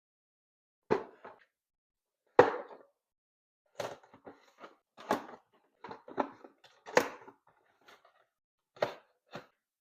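Toy box and packaging being handled and opened: a string of separate knocks, taps and short scraping rustles.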